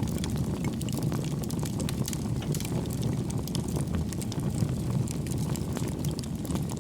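Bonfire burning: a steady low rumble of flames with frequent small crackles and pops from the burning wood.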